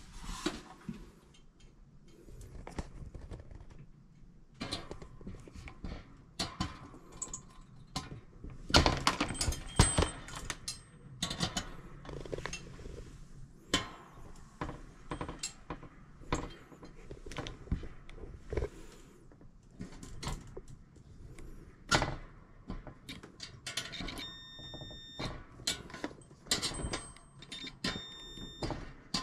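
Hand work on a clothes dryer's heating element assembly: irregular clicks, knocks and metallic clatter of tools and parts being handled, loudest about nine seconds in and again about twenty-two seconds in. Two brief high beeps sound near the end.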